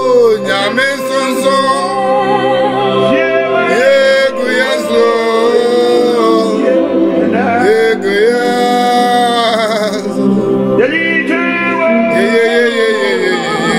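A man singing a gospel worship song in long held notes with vibrato, gliding between pitches, over a sustained backing.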